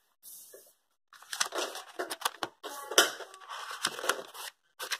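Sheets of paper in a ring binder being handled and turned over, crackling and rustling, starting about a second in.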